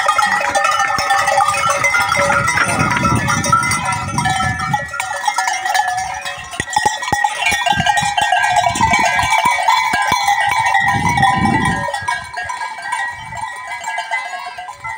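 Many goat bells clanking and jangling together without a break as a herd of goats is let out to pasture.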